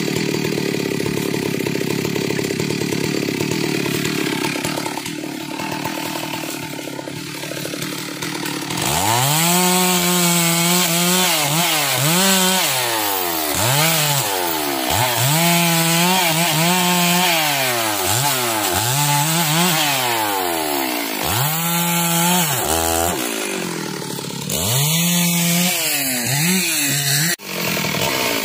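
Stihl two-stroke chainsaw running steadily, then from about nine seconds in revving up and dropping back over and over as it cuts through a felled log.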